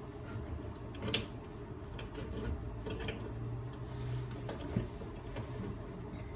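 Scattered small clicks, taps and rubbing as a screwdriver and the wires of a 3-prong power cord are worked at an electric stove's terminal block, the sharpest click about a second in, over a steady low hum.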